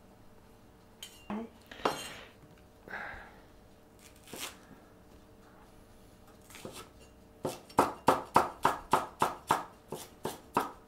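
Chinese cleaver on a wooden cutting board: a few scattered knocks and scrapes, then past the middle a fast, even run of chops, about four a second, as a leek white is sliced finely.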